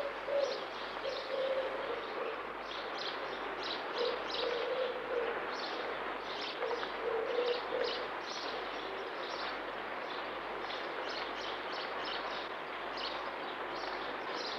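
Birdsong: many short, high chirps over a steady hiss, with a low cooing call repeated several times in the first half.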